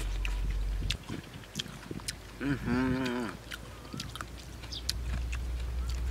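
Rice noodles slurped off a spoon and chewed, with wet mouth clicks and smacks, over a low rumble of wind on the microphone. About halfway there is a brief hum with a wavering pitch, lasting about a second.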